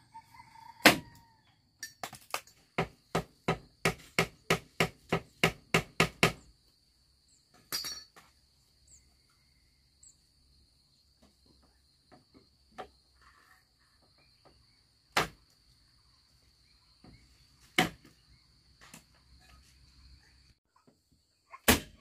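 Hammer blows: a quick run of about four strikes a second for a few seconds, then single blows a few seconds apart. A steady, high-pitched insect drone runs behind them and stops shortly before the end.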